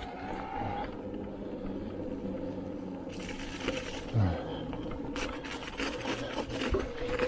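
Canyon Spectral:ON e-mountain bike riding along with its mid-drive motor whining steadily under pedalling, over tyre noise on the trail. About three seconds in, a brighter hiss of tyres crossing patchy ice comes in, and from about five seconds on there are quick clicks and rattles from the bike.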